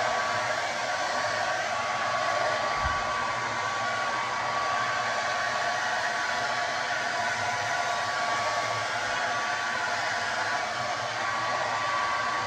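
Conair 1875-watt handheld hair dryer running steadily: a constant rush of air with a thin, steady whine. A brief low thump sounds about three seconds in.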